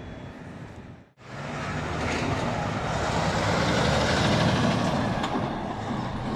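Semi-truck tractor with a diesel engine driving close past, pulling a box trailer. The engine grows louder to a peak a few seconds in, then eases slightly as the truck turns away. About a second in, a brief drop to silence breaks off fainter traffic noise.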